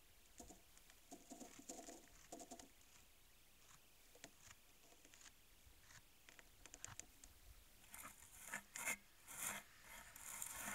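Faint rustling, scraping and crunching from a moose moving right beside the trail camera in snow, a scatter of soft clicks that grows busier near the end.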